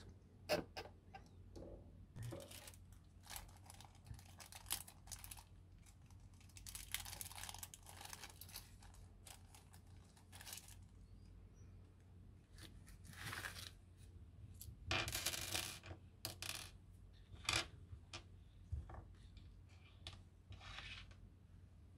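Faint handling sounds of telescope-kit parts: scattered light clicks of small plastic eyepiece pieces, a small plastic bag crinkling, and small metal screws tipped out of the bag clinking onto the table. The longest rustle comes a little past the middle.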